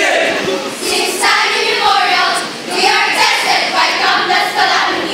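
A speech choir of young voices reciting together in unison, in a rhythmic, chant-like delivery, with a brief pause partway through.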